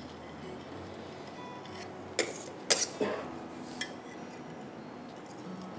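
A metal palette knife scrapes and clinks against a ceramic serving plate while smoothing whipped cream on a cake: a few short clinks and scrapes between two and four seconds in, over low room tone.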